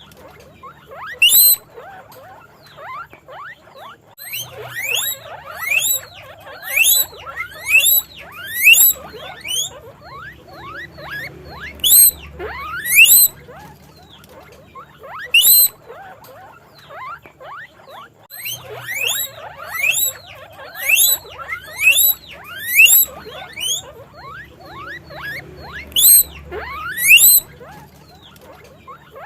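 Guinea pigs wheeking: repeated high squeaks that each rise sharply in pitch, roughly one a second in irregular runs. Some calls are loud and close, while fainter ones overlap behind them.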